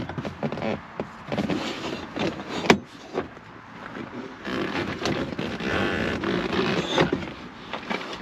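A metal-framed rear captain seat being lifted out of a pickup's rear cab: irregular knocks and clunks as the seat and its steel base bump the cab, the sharpest a little under three seconds in, then a stretch of rubbing and scraping.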